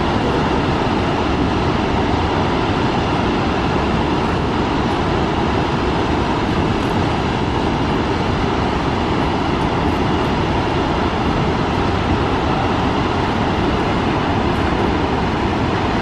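Gullfoss, a large two-stage waterfall on the Hvítá river, pouring into its canyon: a loud, steady rush of falling water.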